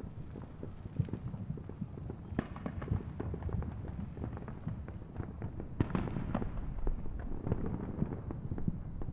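Fireworks crackling and popping in a rapid, irregular string of sharp cracks over a low rumble, busiest about six seconds in.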